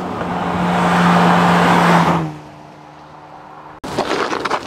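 Honda Civic Type R FK8, fitted with an HKS exhaust, driving past. Its engine note and tyre noise swell to a peak about two seconds in, then drop in pitch and fade as it moves away. The sound cuts off suddenly near the end, followed by a few sharp clicks.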